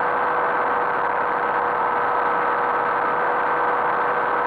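Ultralight aircraft's engine and propeller running steadily in level flight, heard on board with rushing wind: an unchanging drone with a steady hum.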